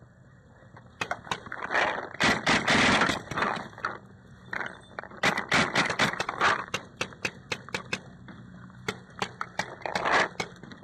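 Paintball markers firing: an irregular series of sharp pops, in quick runs about two to three seconds in and again around six seconds, with scattered shots near the end.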